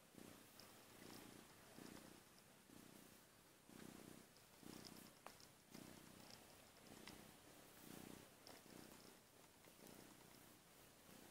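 Kitten purring steadily while being stroked, the purr coming in slow, regular pulses.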